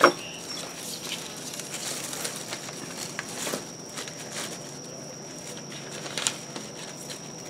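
Freshly pulled garlic plants being handled and laid on newspaper: soft rustling of stalks, dry roots and paper, with a few light taps and a sharp knock at the very start.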